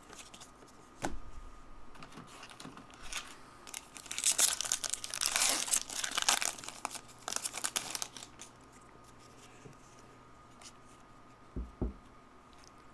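Plastic trading-card pack wrapper being torn open and crinkled by hand, loudest from about four to eight seconds in, then quieter rustling as the cards are handled. A soft knock near the end.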